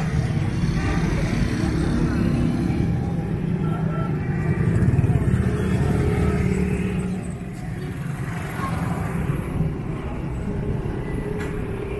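A motor vehicle's engine running close by, loudest about five seconds in and dropping away after about seven seconds, over the talk of people in the street.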